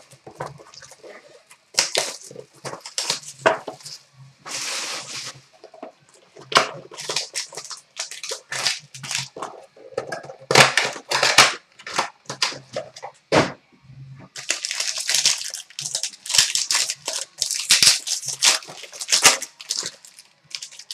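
Cellophane shrink-wrap and plastic card-pack wrappers crinkling and tearing as they are pulled open by hand. It comes as a run of short rustling bursts, with a longer unbroken crinkle late on.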